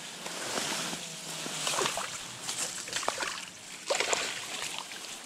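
Water splashing several times as a hooked chub is brought into a landing net, over a steady rustle of reed stems brushing against the microphone.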